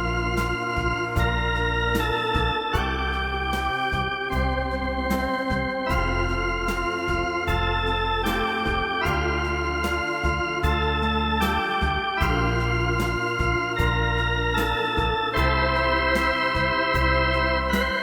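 Electronic organ playing a slow ballad: a melody over held chords and a bass line, with a steady drum beat underneath.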